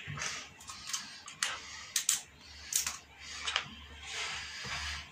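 Irregular sharp metal clicks and scrapes of pliers handling a stiff steel wire, with a few louder ticks among soft rustling.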